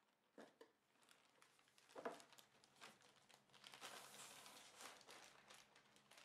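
Clear plastic bag crinkling and rustling as a chess board is slid out of it, with a few sharp crackles, the sharpest about two seconds in.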